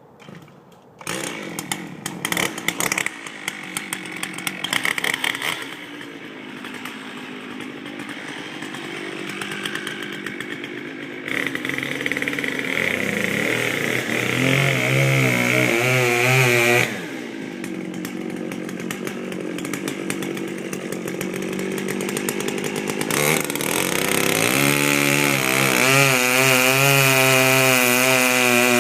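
Stihl 084 two-stroke chainsaw starting up about a second in and running rough at first, then settling. It is revved up to full throttle twice: briefly the first time, then held at a steady high speed to the end.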